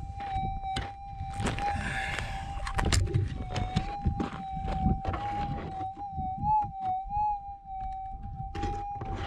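Metal detector's steady mid-pitched tone, wavering and rising briefly in pitch a few times as the coil is swept over a freshly dug hole. Alongside it are knocks and scrapes of the coil and shaft against the stony ground, with a burst of rustling about two seconds in.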